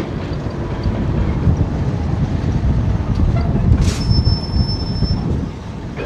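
Heavy truck-tractor pulling a loaded low trailer, its diesel engine and wheels rumbling steadily at crawling speed. A short high-pitched squeal comes in about four seconds in and lasts about a second.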